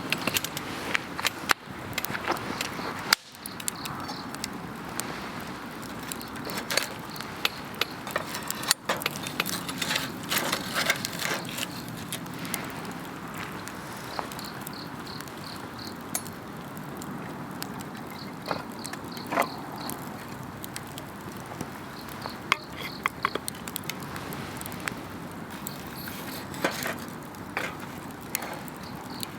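Wood campfire crackling, with irregular sharp pops and snaps, busiest in the first dozen seconds and again near the end. Under it, insects keep up a faint pulsing high chirp.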